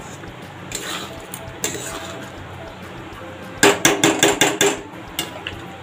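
Flat metal spatula scraping and knocking against an aluminium kadhai while stirring chicken in thick masala. A couple of single clacks come first, then a quick run of about eight clatters a little past halfway.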